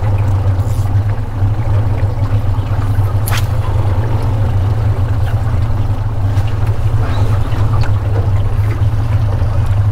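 Boat's outboard motor running steadily at low trolling speed, a constant low hum, with a brief click about three seconds in.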